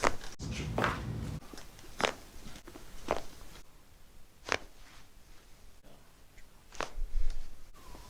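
Joints cracking during a chiropractic adjustment: about six sharp, short pops spaced a second or so apart, one of the loudest near the end.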